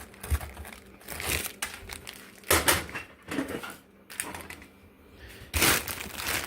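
Plastic packaging crinkling and rustling, with a few knocks, as packaged steaks are lifted from the box and set down.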